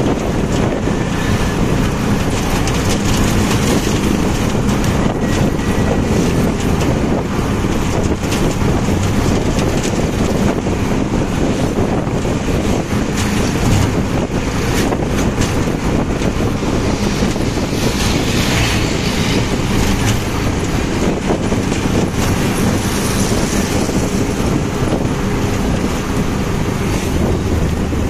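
A motorcycle taxi cab riding along a road, heard from inside its open-sided passenger compartment: the engine runs steadily under the road and wind noise, and wind buffets the microphone.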